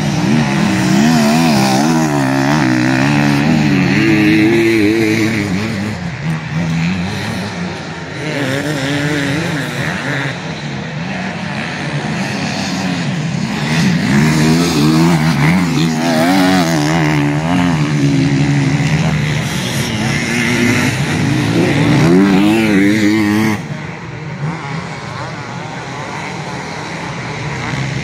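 Enduro motorcycle engines at racing speed, revving up and down through the gears in repeated passes. The loudest pass near the end cuts off suddenly, leaving a quieter engine running.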